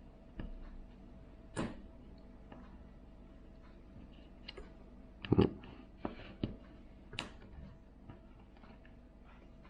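Scattered small clicks and taps of tools and small smartphone parts being handled during reassembly, the loudest a little past halfway, over a faint steady hum.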